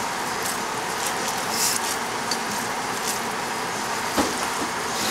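Butter-and-flour roux sizzling steadily in a saucepan as it is stirred with a wooden spoon, with a few faint spoon clicks against the pan.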